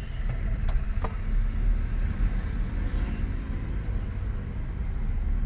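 Low, steady rumble of engine and road noise heard inside the cabin of a 2016 Nissan Qashqai in slow traffic, with two faint clicks about a second in.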